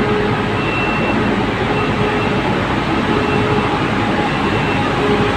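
Dump truck's diesel engine running as the truck drives slowly along a tunnel, a steady loud machinery noise that echoes off the tunnel walls, with a faint tone that comes and goes.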